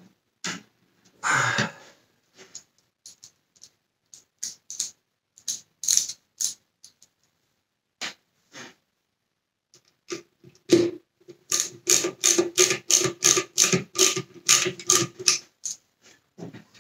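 Scattered light metallic clicks and taps as a Torx screwdriver is handled. About eleven seconds in comes a run of quick clicks, about four or five a second for some four seconds, as the screwdriver is worked on a screw in the vacuum cleaner's body.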